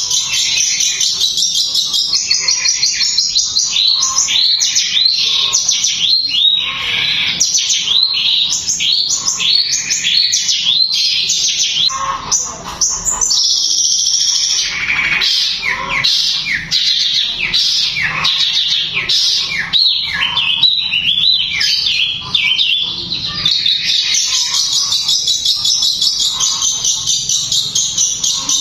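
Long-tailed shrike (cendet) singing without pause in a fast, tightly packed stream of sharp, high chirps, with long runs of rapid-fire repeated notes, the 'tembakan' bursts that keepers prize.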